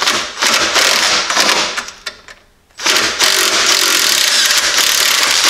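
Milwaukee M18 cordless impact wrench hammering on a swivel socket, loosening the 15 mm belt-tensioner bolt. It runs in two bursts, about two seconds and then about three seconds, with a short pause between.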